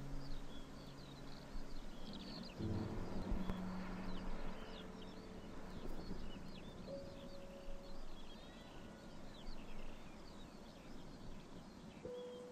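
Many birds calling in short chirps over a steady background hiss, with a few long, low held tones coming and going.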